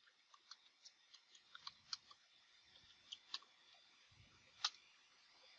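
Faint, irregular clicks of computer keyboard keys being typed, with one louder keystroke near the end.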